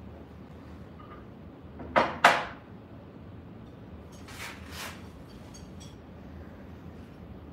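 Two sharp knocks close together about two seconds in, then a softer pair of clunks and a few light clicks, as parts are handled and set down on a router table and its fence.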